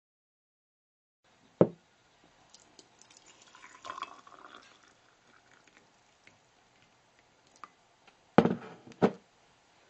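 Hot liquid poured from a kettle into a ceramic mug: a short pour that builds to its fullest about four seconds in and then trails off. A sharp knock comes before it, and two louder thumps follow near the end.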